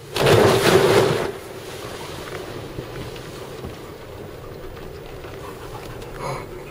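A wave breaks over the breakwater boulders and its spray dashes against the car, heard from inside the cabin as a loud rush of about a second. A steady low hum from the car carries on underneath.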